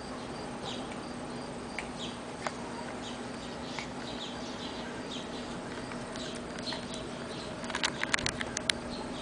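Outdoor ambience: a steady low hum with small birds chirping in short, repeated high notes. Near the end comes a quick run of sharp clicks.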